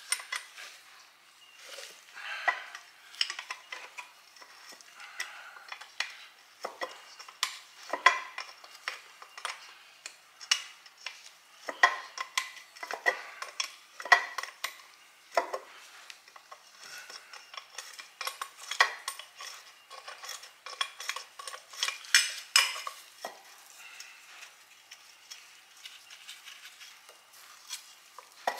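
Spanner and loose metal parts clicking and clinking on the exhaust manifold nuts of a Ford flathead V8 as the nuts are undone: an irregular run of sharp metallic clicks and taps, busiest in a few clusters.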